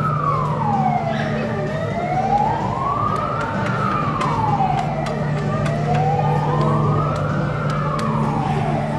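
Wailing siren, one tone rising and falling slowly, about once every four seconds, over a steady low hum.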